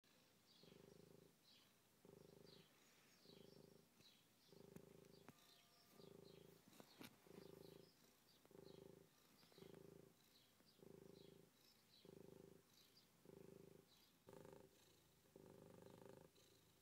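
A cat purring faintly, in a steady pulse of about one beat a second as it breathes in and out.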